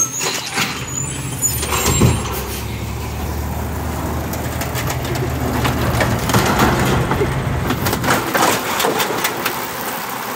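Garbage truck engine running steadily, with a string of clanks and knocks about six to nine seconds in.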